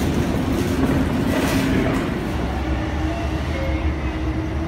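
Steady mechanical rumble and hum in a railway station, of the kind made by escalator machinery and trains. About two seconds in, the hiss thins out and a steady low drone with a faint held tone remains.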